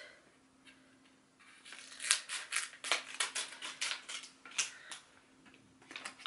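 Small scissors snipping through the wrapping of a paperback book: a quick run of short snips beginning about two seconds in, with a few more near the end.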